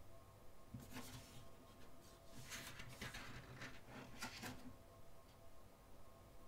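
Faint paper rustling as the pages of a photo book are turned by hand, in three short bouts.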